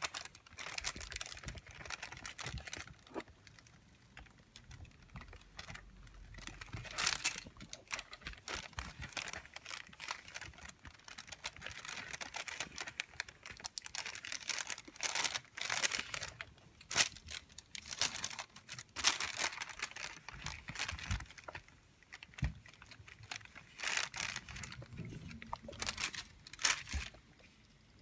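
Wax paper crinkling and rustling, with irregular light clicks and taps, as it is pressed and handled during heat-transfer vinyl work on a headphone band.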